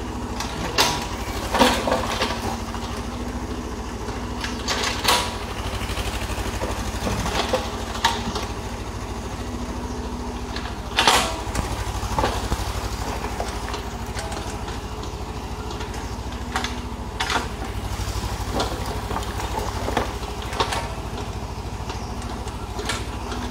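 Hitachi excavator's diesel engine running steadily, with sharp knocks and clanks at irregular moments.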